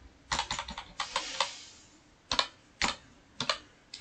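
Computer keyboard being typed on: a quick run of keystrokes in the first second or so, then four separate key presses about half a second apart.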